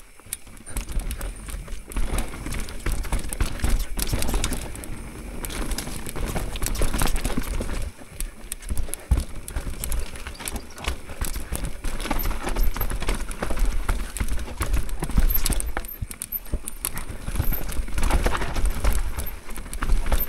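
Mountain bike descending a rough trail at speed, its tyres and frame clattering over the ground in a rapid, irregular string of knocks, with wind rumbling on the microphone.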